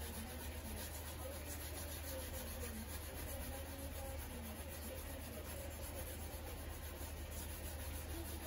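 Faint, steady rubbing of a rubber pad charged with natural whetstone powder against the bevel of an Edo-style usuba knife, working up a kasumi (hazy) finish, over a low steady hum.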